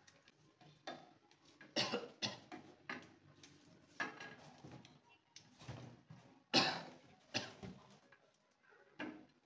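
Aluminium tripod being extended by hand: a scattered series of short, sharp knocks and clicks from its legs and leg locks, the loudest about two-thirds of the way through.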